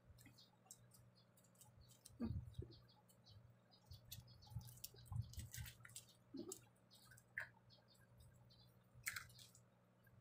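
Quiet hand-eating sounds: scattered faint clicks, smacks and small knocks of fingers picking at fried milkfish and rice on a banana leaf, over a low steady hum.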